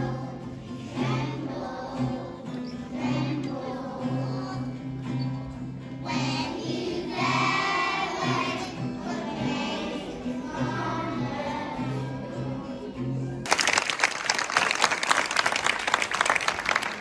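A group of young children singing together over a backing track with a steady bass line. Near the end the song stops abruptly and loud applause takes over.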